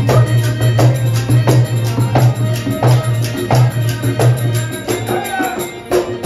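Rajasthani folk music played live for a Kalbelia-style dance: a drum beating a steady rhythm with tambourine-like jingles over a sustained low drone. The drone drops out briefly near the end.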